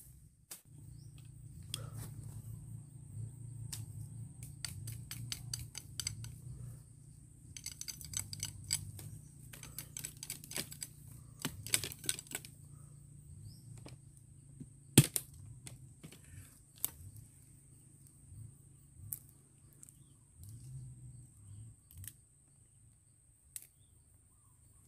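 A knife cutting and shaving a thin wooden stick to make a fishing pole: runs of quick, sharp clicking cuts, then one loud crack about fifteen seconds in, followed by a few scattered single clicks.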